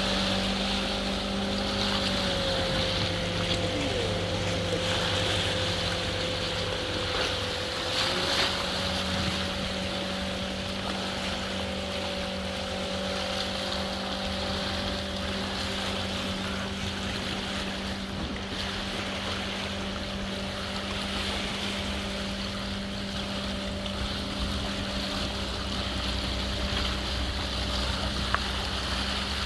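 A motor running steadily under a constant rushing noise. Its hum dips slightly in pitch about two seconds in and comes back up about eight seconds in.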